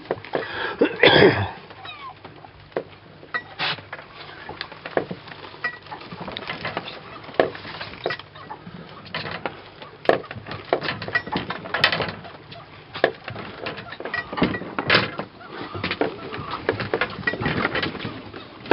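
Scattered, irregular clicks and knocks of fishing gear being handled at a boat's rail while an angler reels in a fish, over a steady background hiss.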